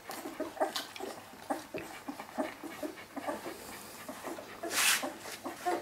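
A litter of 23-day-old puppies nursing: a busy run of small smacking suckling clicks and brief high squeaks and whimpers, with the mother dog panting. A short louder hiss-like burst comes about five seconds in.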